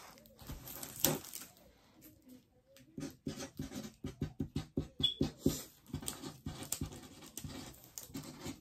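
Marker pen writing on a kit package: a quick, irregular run of short strokes starting about three seconds in.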